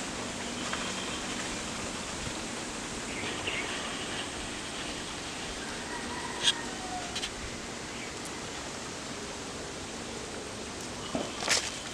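Leaves being picked by hand from garden plants over a steady outdoor hiss: soft rustling with a few sharp snaps, one about halfway through and a short cluster near the end.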